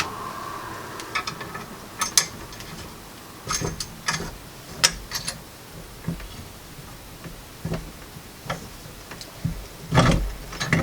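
Irregular clicks and knocks of a small hand-cranked grain mill's parts being handled and fitted together, with a louder cluster of knocks near the end.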